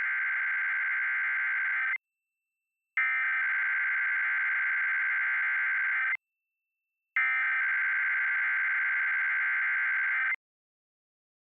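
Emergency Alert System SAME header: a harsh, buzzing digital data burst sent three times, each about three seconds long with a second's silence between. The tail of the first burst ends about two seconds in, and the second and third follow in full. These bursts open a Required Weekly Test.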